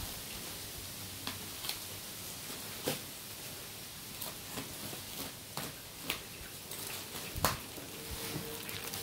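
Scissors cutting through the plastic wrapping and packing tape of a parcel, with the plastic being handled and pulled open: scattered sharp snips and crinkles.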